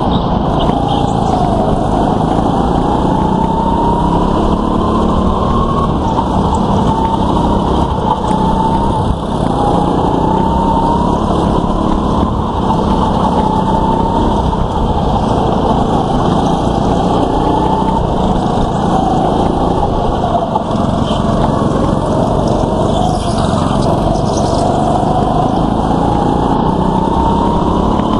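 Go-kart engines running hard, the driver's own engine's pitch climbing on the straights and dropping back into the corners, over and over, with other karts close by.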